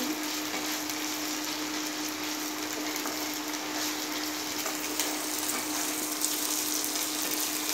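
Chopped onions and ginger-garlic paste sizzling steadily in hot oil in a nonstick kadai, stirred with a spatula with light scrapes and clicks: the paste being fried until its raw smell goes. A steady low hum runs underneath.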